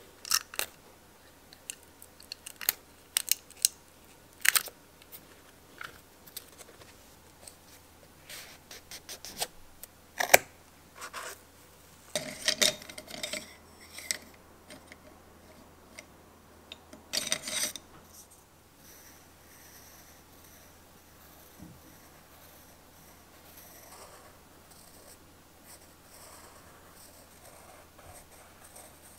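A run of sharp clicks and taps, then wooden colored pencils clattering against a glass jar as one is picked out. In the last third, a colored pencil scratches faintly and steadily across paper as it writes.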